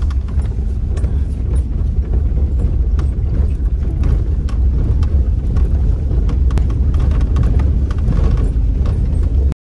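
Car driving along a rough dirt track, heard from inside the cabin: a steady low road-and-engine rumble with scattered clicks and knocks over the bumpy ground.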